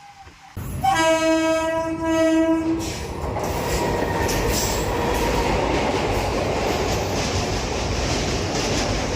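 Train horn sounding one long blast of about two seconds as a train comes by close, followed by the loud, steady rumble and clatter of the train's wheels on the rails.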